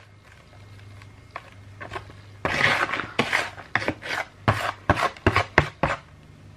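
Metal spoon scooping and scraping crumbly bath bomb mixture into a round metal mould half, with rasping scrapes and several sharp taps of metal on metal, starting about two and a half seconds in.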